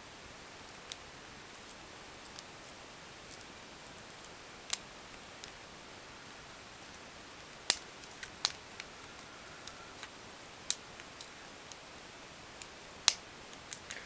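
Irregular small sharp clicks and taps of a metal padlock and lock picks being handled, a few louder clicks standing out in the second half, over a faint steady hiss.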